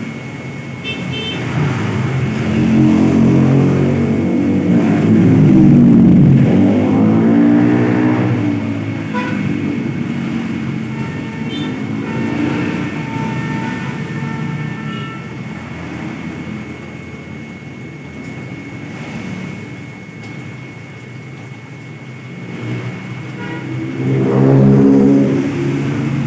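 Motor vehicle engines passing on a nearby road, their pitch rising and falling as they go by, loudest in the first third and again near the end, over a steady traffic hum and a faint steady high tone.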